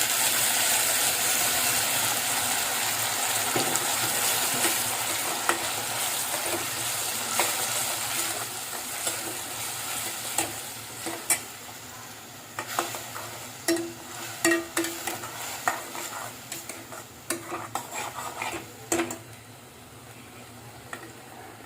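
Ground onion paste frying in hot oil in a kadhai. The sizzle is loud at first and dies down steadily, while a spoon scrapes and clinks against the pan as it is stirred, most clearly in the second half.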